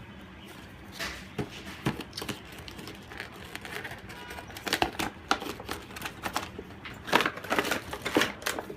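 Cardboard box and plastic packaging handled during an unboxing: irregular clicks, taps and crinkling, sparse at first and busier and louder in the second half.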